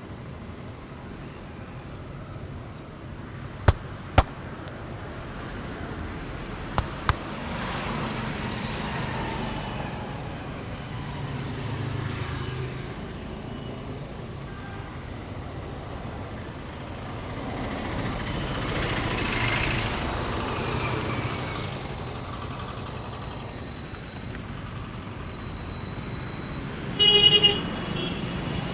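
Roadside traffic with vehicles passing by. Two pairs of sharp snaps come about four and seven seconds in, and a vehicle horn honks briefly near the end.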